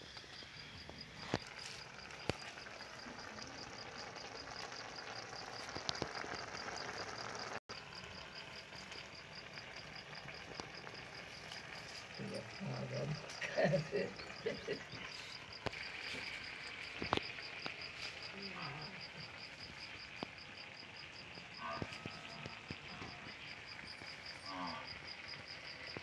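A cricket chirping steadily, a high, fast, even pulsing trill, with faint voices talking about halfway through and again near the end.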